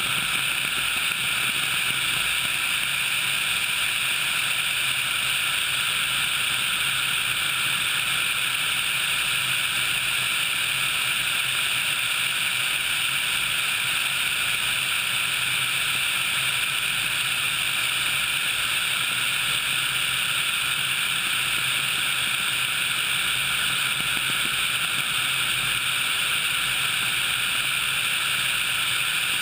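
HH-60 Pave Hawk helicopter in cruising flight, heard from a camera mounted on the outside of the airframe: a steady, unchanging rush of airflow and turbine noise with a low hum underneath.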